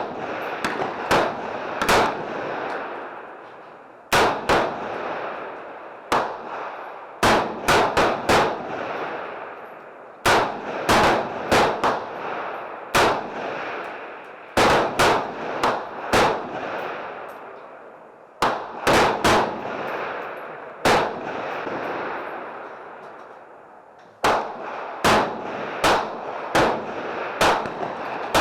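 Rapid semi-automatic gunshots in quick strings of three to six, repeating every few seconds, each string followed by a long, fading echo.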